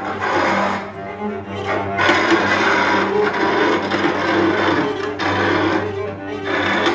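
Cello bowed hard in a free improvisation, with scratchy, rasping bow noise over a low held note; the sound grows denser about two seconds in.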